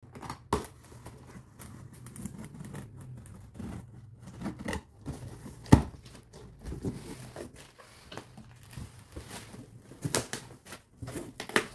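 A cardboard shipping box being opened by hand: scissors at the packing tape, cardboard flaps rustling and scraping, and plastic air-cushion packing crinkling, heard as irregular clicks and short rustles. The loudest is a single sharp click just before halfway through.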